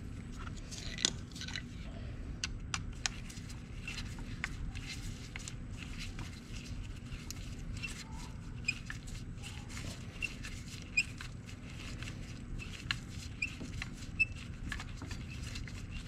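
Scattered small clicks and taps of a 2017 Honda Foreman 500's front brake caliper and pads being handled and fitted, irregular and a few sharper than the rest, over a steady low hum.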